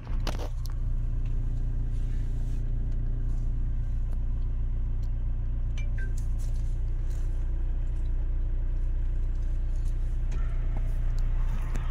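Steady low rumble of engine and road noise inside a moving shuttle van, with a few light clicks and rattles.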